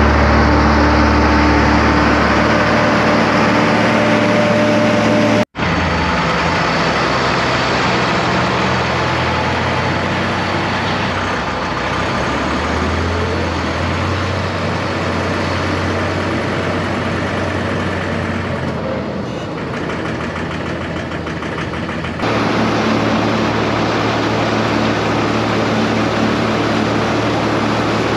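Tractor engine and silage blower running steadily under load as haylage is blown up the pipe into a tower silo. The sound breaks off abruptly about five seconds in and shifts again suddenly about twenty-two seconds in.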